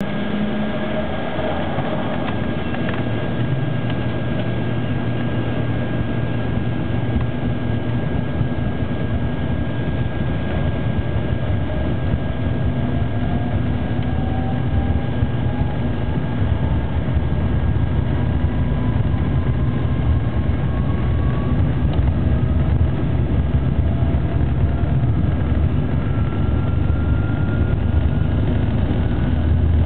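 Airliner jet engines heard from inside the cabin: a continuous rumble with a steady high whine. From about twelve seconds in, a whine rises slowly in pitch and the sound grows slightly louder as the engines spool up for takeoff.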